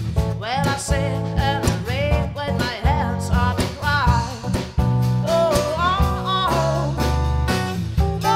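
A live acoustic band performance: a voice singing a gliding melody over strummed and plucked Maton acoustic guitar, with a low bass line underneath.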